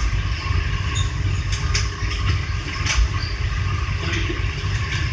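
Steady rumble and hiss of the cooling fans and air conditioning in a broadcast equipment room, with a few light clicks.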